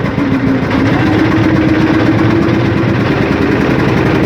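Boat engine running steadily with a rapid low chugging, its pitch rising slightly about a second in.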